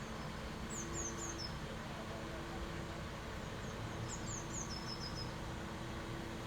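Small birds chirping in short runs of quick, high, falling notes, one run about a second in and a longer one about four seconds in, over a steady low mechanical hum.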